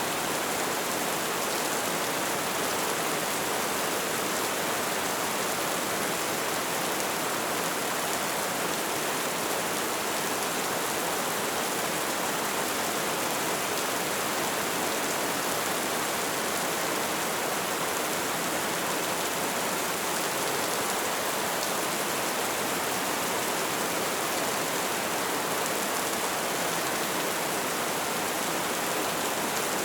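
Steady rain falling: an even, unchanging hiss with no separate drops, thunder or other events standing out.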